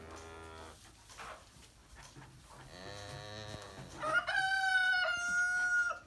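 A rooster crowing once, a long held call starting about four seconds in, the loudest sound here. Before it, two fainter and lower calls come from the young calves in the pen.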